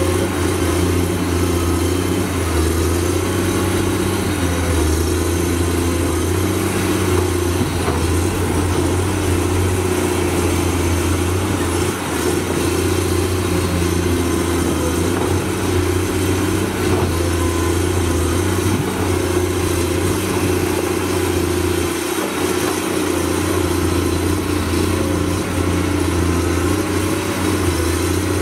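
Komatsu PC210 hydraulic excavator's diesel engine running steadily while the boom and bucket dig soil, with a constant low hum throughout.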